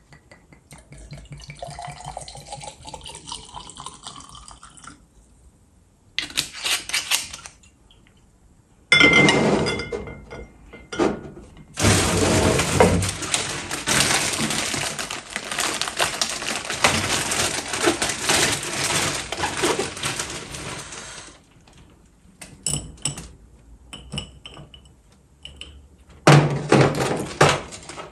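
Vodka pouring from a Smirnoff bottle into a tall glass with lemon slices, the pitch of the pour rising as the glass fills. Then come knocks and clinks of glass, and a long, loud, noisy stretch lasting about nine seconds in the middle.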